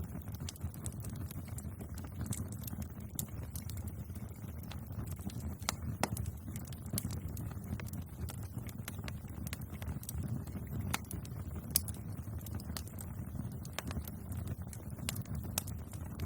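Wood fire burning, with a steady low rumble of the flames and frequent sharp crackles and pops scattered irregularly throughout.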